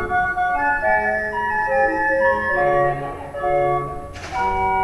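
Hand-cranked street barrel organ (a Chilean organillo) playing a tune of steady held notes over a bass line. A short hiss cuts across the music about four seconds in.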